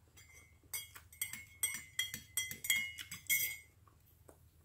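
A metal spoon stirring in a ceramic mug, clinking against its sides in a quick run of light clinks that each ring briefly. The clinks start just under a second in and stop after about three seconds.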